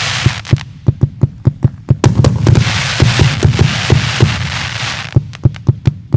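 JF 'Khansky' firework going off: a rapid string of sharp bangs, several a second, with a stretch of crackling hiss through the middle.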